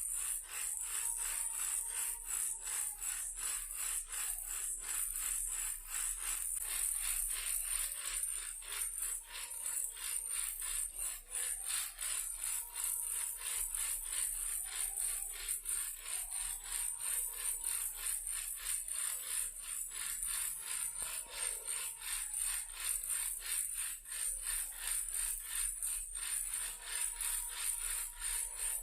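Plastic toy car shaken as a baby rattle, its loose parts rattling in a steady, rapid rhythm of about four shakes a second.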